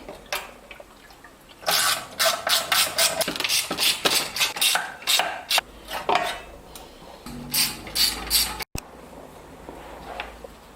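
Hands working on small-engine parts: a quick run of short scraping, rubbing and clicking strokes that starts about a second and a half in and goes on for several seconds, with a low hum under the later part.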